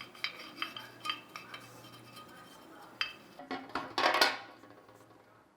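Metal parts clinking and knocking as they are handled, a string of separate light strikes with a louder cluster about four seconds in, over a low steady hum.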